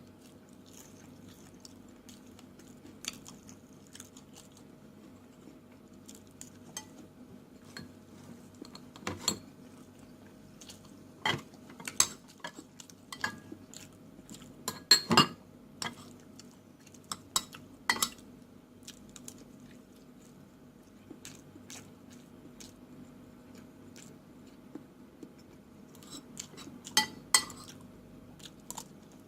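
Cutlery clinking and scraping against a plate in scattered sharp clicks, the loudest around the middle and again near the end, with chewing between them. A faint steady hum lies underneath.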